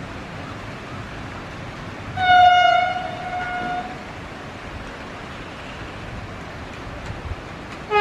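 Vande Bharat Express train set sounding its horn as it approaches: one steady blast of about a second and a half about two seconds in, the loudest sound here, then a second, lower-pitched blast starting at the very end. A steady hiss runs underneath.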